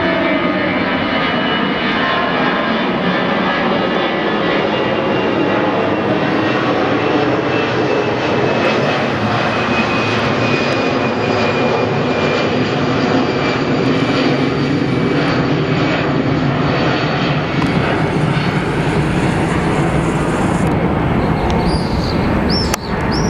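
Twin-engine jet airliner passing low overhead, its engines a loud, steady rumble with a whine that slowly falls in pitch.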